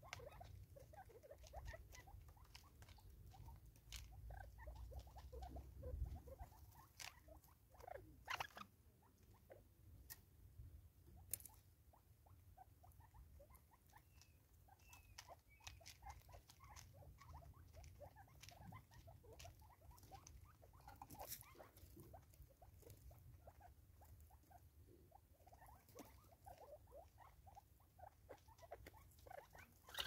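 Faint, irregular pecking and tapping of spurfowl bills on a wooden stump as the birds feed, with many small clicks and an occasional sharper tap.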